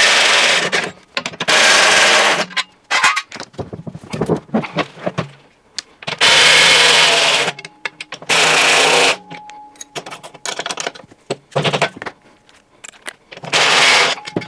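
Cordless impact driver run in five bursts of about a second each, undoing bolts on a washing machine's outer tub, with light metal clinks and handling knocks between the bursts.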